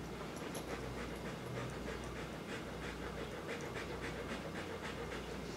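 Rottweiler panting in quick, even breaths, several a second.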